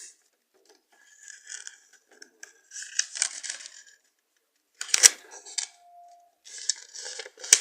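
A sheet of paper rustling and crinkling as it is handled and creased, in several short bursts with pauses between, and a sharp tap about five seconds in and again near the end.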